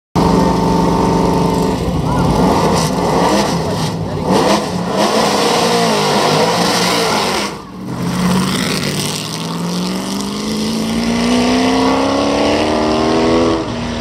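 McLaren M10 Formula 5000 race car's Chevrolet V8 running. It idles steadily at first, then is blipped and revved unevenly. After a brief drop it climbs smoothly and steadily in revs for several seconds.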